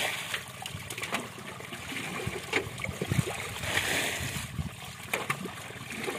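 Shallow muddy water sloshing and trickling, with irregular small splashes and clicks.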